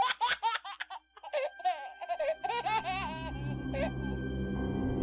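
High-pitched laughter in quick repeated ha-ha pulses for about the first four seconds. A steady ambient music bed comes in about halfway through and carries on.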